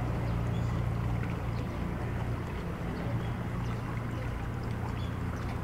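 Steady low motor hum of a small sightseeing canal boat, over the wash of flowing canal water.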